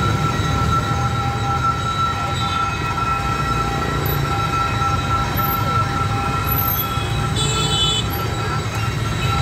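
Motorbikes and cars driving past in a steady rumble of engines and tyres, with a steady high-pitched tone over the traffic.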